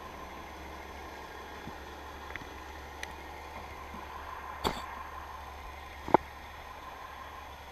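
Underwater sound over a reef: a steady low hum, with a few faint clicks and two sharp knocks, the second and loudest about six seconds in.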